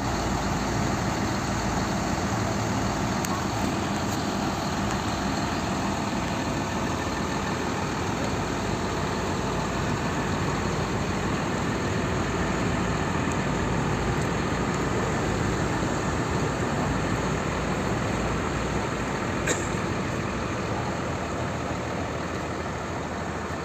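A large bus's diesel engine running steadily, with one brief sharp click near the end.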